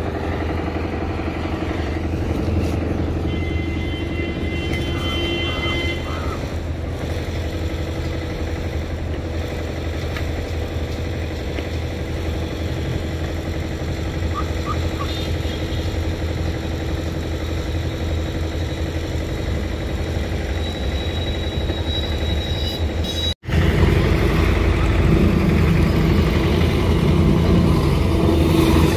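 A motor vehicle's engine idling with a steady low hum. About 23 seconds in the sound cuts out for an instant and comes back louder.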